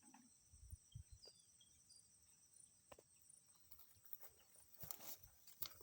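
Faint outdoor ambience: a steady high insect chirring, like crickets, with scattered soft rustles and footsteps on soil, a few more together near the end.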